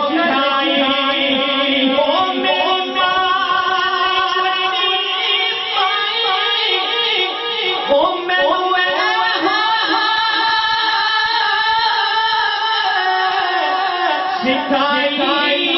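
A man singing a naat, a devotional Islamic poem, into a microphone. He sings long, wavering held notes without a break.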